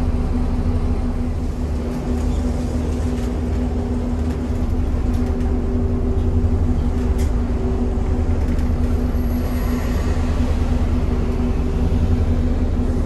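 Scania L94UB bus under way, heard from inside its passenger cabin: a steady engine and drivetrain rumble with a constant hum over it.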